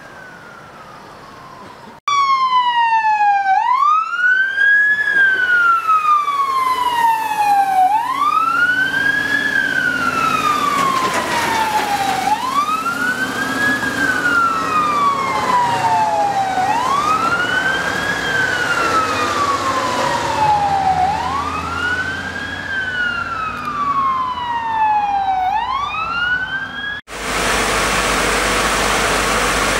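Emergency vehicle siren wailing, each cycle rising quickly and falling slowly, repeating about every four and a half seconds. Near the end it cuts off suddenly and a steady rushing noise with a low rumble takes over.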